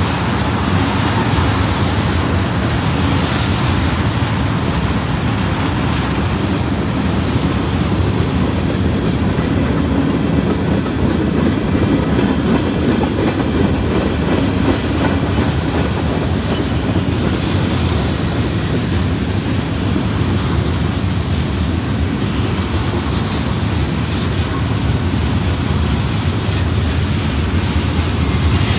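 Freight train of tank cars and covered hoppers rolling past: steel wheels running on the rails in a steady, loud, continuous noise.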